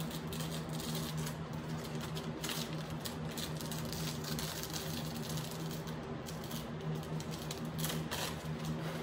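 A steady low mechanical hum, with a few light scrapes and taps as epoxy is worked along a countertop edge by a gloved hand.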